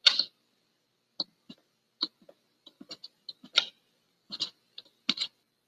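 Irregular small clicks and ticks as a threaded fitting is unscrewed by hand from a plastic outboard fuel tank, about a dozen, unevenly spaced.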